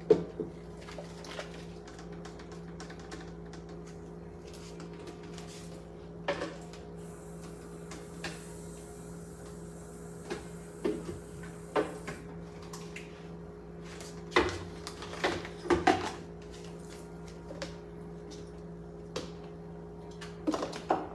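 Occasional knocks and clinks of cookware against a pot, a few seconds apart, as a blended pepper-and-onion mixture is added to a pot of fish, over a steady low hum.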